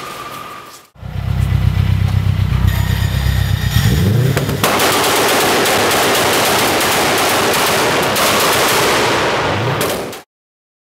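Car exhaust blasting from the tailpipe at close range as the engine is revved: a loud, fast-pulsing low rumble, then from about four seconds in a loud hissing rush held until it cuts off abruptly.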